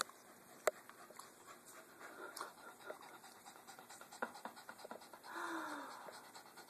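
Small dog panting, with a few sharp clicks and light taps. About five seconds in comes a short, louder sound that falls in pitch.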